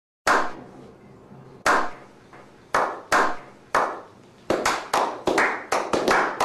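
A small group clapping slowly: single sharp claps with a short echo, well spaced at first, then coming faster from about four and a half seconds in as the applause builds.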